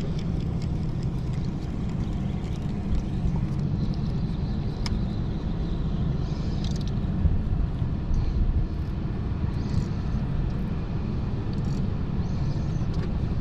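Steady low rumble of a boat's outboard motor running at idle, with a few brief higher hissing swishes.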